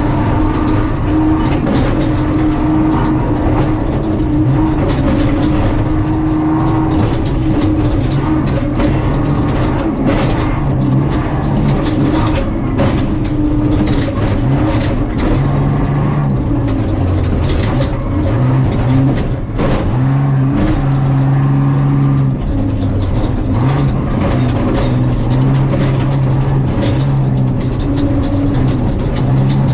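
Jeep Cherokee prerunner's engine running hard, heard inside the cab, its pitch stepping up and down with throttle and shifts. Frequent knocks and rattles come from the truck driving fast over rough dirt.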